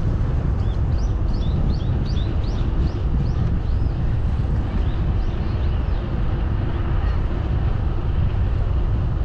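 Wind buffeting the microphone of a moving bicycle: a steady, loud rush. Over it, through the first two-thirds, comes a quick series of short high chirps.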